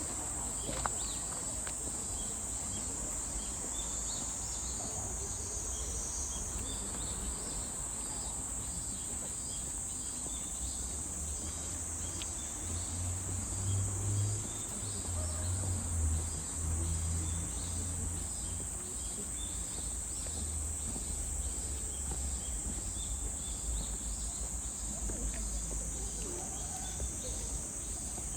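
Summer insect chorus: a steady high-pitched buzz with a repeating chirp over it. A low rumble swells for a few seconds in the middle.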